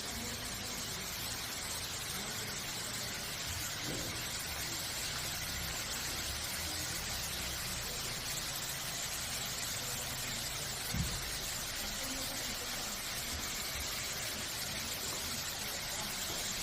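Waterfall rushing in a steady, even roar, with one brief low thump about two-thirds of the way through.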